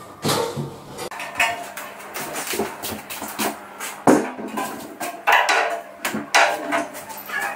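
Steel panel radiator clanking and knocking as it is handled and lifted into place on the wall: a run of sharp metallic knocks at irregular intervals.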